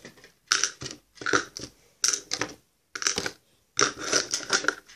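Small plastic toy accessories being handled and put into a small plastic container: irregular short bursts of rustling and clicking.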